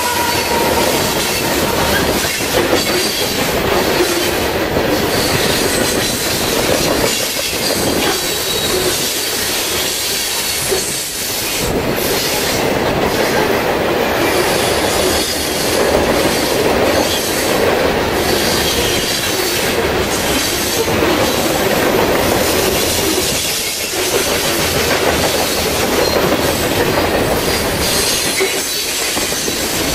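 Freight train of covered hopper cars rolling past at speed: a steady loud rumble and clatter of steel wheels on the rails, with faint high wheel squeal at times.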